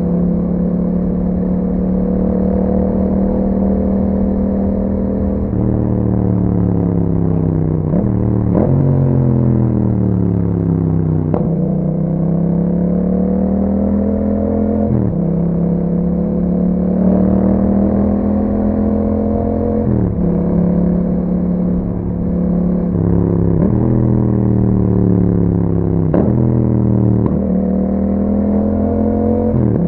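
Yamaha MT-07's parallel-twin engine barking through an aftermarket Akrapovic exhaust with a dB killer while riding. It is steady for the first few seconds, then the revs rise and fall again and again, with sudden jumps in pitch at the gear changes.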